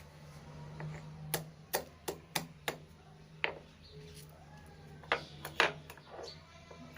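About ten sharp knocks and taps in uneven succession, some followed by a brief scrape, from a hard utensil on the stone grinding slab (shil-nora) as the freshly ground tulsi paste is gathered up. A faint steady low hum runs underneath.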